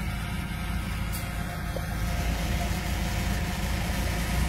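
Off-road race buggy's engine idling steadily at low revs, growing a little louder about two seconds in.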